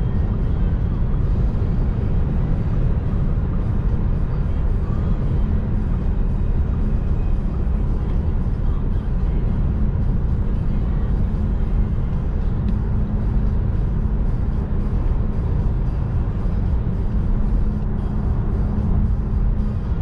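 Steady low road and wind roar inside the cabin of a Volkswagen ID.3 electric car cruising at about 120–135 km/h on the motorway. There is no engine note, only tyre and wind noise.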